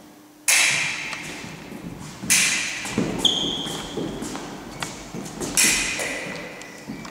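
Foil blades clashing three times, sharp metallic beats that echo in a large hall, one of them leaving a brief clear ring, with footwork thudding on the wooden floor in between.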